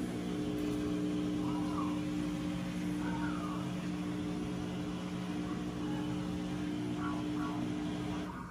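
Steady whirring hum of a small motor, with a constant low drone, stopping suddenly near the end.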